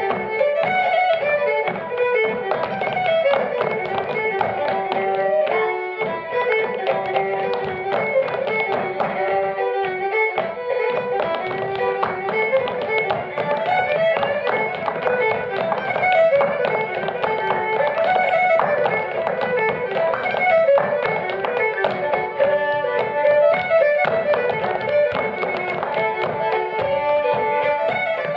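Live fiddle playing a quick traditional dance tune, with the dancers' shoes tapping on the wooden stage floor.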